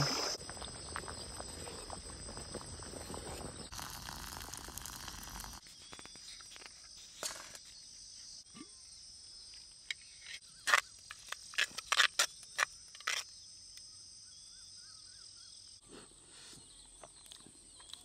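Insects chirring steadily in the background, a high, even drone. A little past halfway comes a quick run of sharp knocks, the loudest sounds here.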